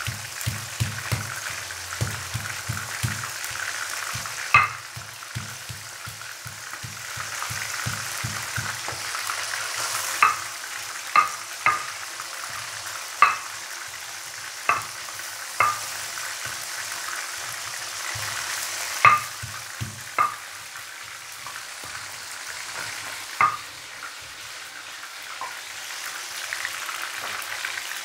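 Pieces of tongkol fish deep-frying in hot oil in a wok: a steady sizzle, broken by about ten sharp, loud pops scattered through.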